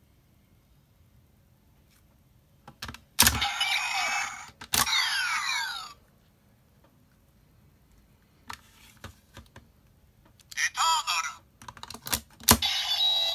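Bandai DX Lost Driver toy belt with the Eternal Gaia Memory: a sharp plastic click about three seconds in as the slot is flipped, then the belt's electronic transformation sound effects with a voice call and sweeping falling tones. Small plastic clicks follow, and more electronic sound plays near the end as the memory is handled.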